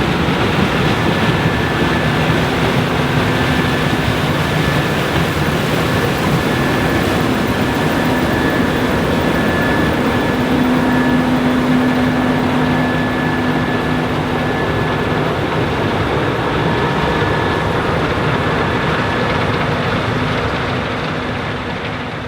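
Case IH 7130 Axial-Flow combine, with its 8.7-litre FPT diesel engine, running steadily under load while harvesting corn: a dense, even machinery noise with a steady low hum and a faint high whine. It fades out near the end.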